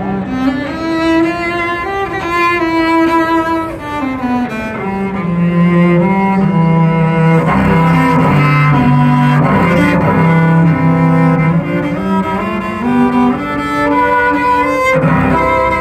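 Cello with carbon-fibre front and back plates and a 3D-printed middle, bowed in a melody of long sustained notes. The pitch moves up and down every second or two.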